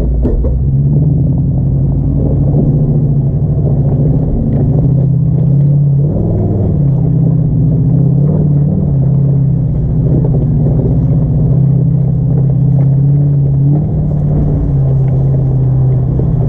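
Off-road SUV engine running at low speed on a trail, a steady low drone whose pitch wavers slightly about six to nine seconds in.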